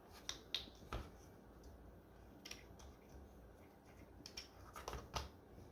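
Faint, scattered light clicks and taps of a rubber slot-car tire being handled and fitted onto the plastic wheel of a 1:24 slot car, about seven in all, irregularly spaced.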